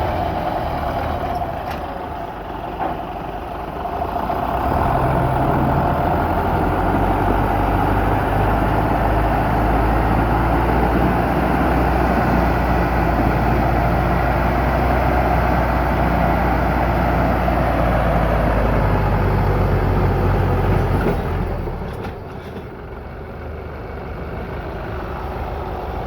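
Tractor diesel engines running hard under load, a steady low drone. It eases off briefly a few seconds in, comes back up strongly, then drops to a lower, quieter running level about five seconds before the end.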